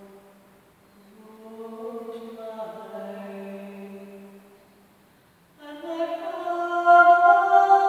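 Unaccompanied solo singing voice holding long, slow notes in a resonant hall. Near the end of the first part it drops out briefly, then comes back louder and higher about five and a half seconds in.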